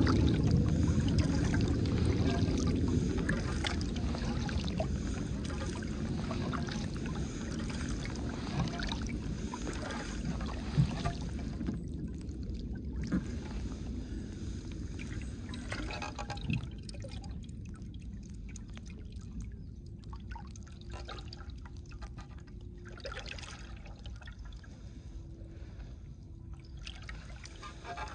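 Water rushing and lapping along the hull of a Dagger Stratos touring kayak as it moves through the lake, with scattered small drips and taps. It is loudest at first and eases off gradually.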